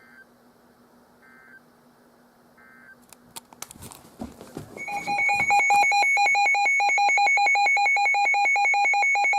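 Weather alert radio: three short, faint data bursts about a second apart near the start, typical of the end-of-message code that closes an alert broadcast. After a few clicks, a loud electronic alarm starts about five seconds in: rapid pulsing two-tone beeping, several pulses a second. This is the radio sounding its alert for an incoming warning.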